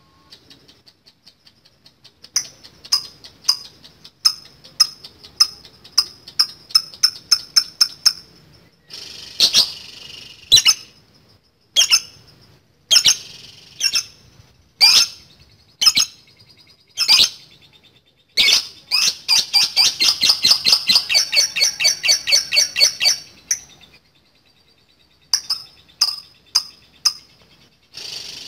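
Lovebird calling: sharp, high chirps, first in quick series and then as single loud calls. About two thirds of the way in it breaks into a long rapid chatter of about five notes a second, lasting some four seconds: the long 'ngekek' that makes this lovebird's song a bait for rival birds.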